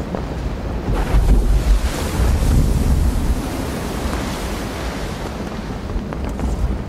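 Ocean waves washing in, a rushing noise that swells about a second in with a deep rumble, then eases.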